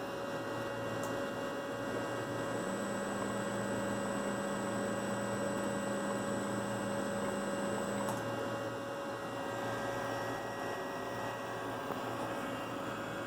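Allen-Bradley MPL-B580F servomotor and its drive running on a test: a steady electrical hum. A second tone joins about three seconds in, and it stops together with a faint high whine at a click about eight seconds in.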